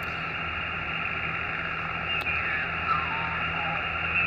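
Xiegu X6100 HF transceiver's speaker hissing with band noise on 20-metre upper sideband as the dial is tuned upward. About two seconds in, a whistle falls steadily in pitch as the tuning sweeps past a carrier.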